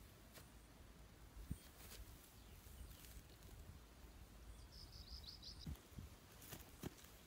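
Near silence: faint soft knocks and rustles of grass sods being pressed onto a turf-covered shelter, and a small bird's quick run of four or five high chirps about five seconds in.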